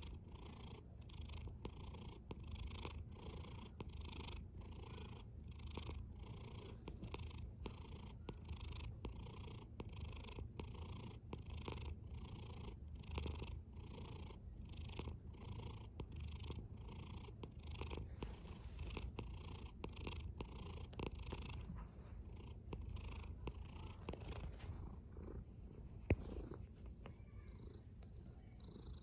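Domestic cat purring close up: a steady low rumble whose breathy hiss pulses about twice a second with each in- and out-breath. Over the last third the pulses grow fainter and uneven, and there is a single sharp click near the end.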